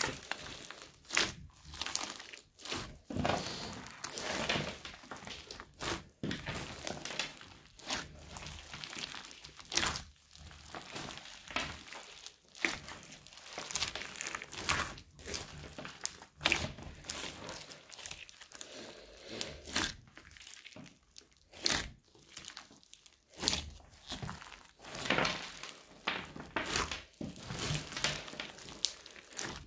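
Hands kneading and squeezing a mass of mixed crunchy slime full of foam beads and white crusty chunks, giving an uneven run of crackles and crunches.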